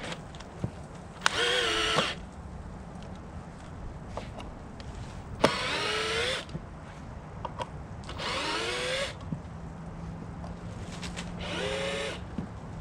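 A small power tool motor run in four short bursts about three seconds apart, its pitch dipping and rising under load each time, over a steady low hum.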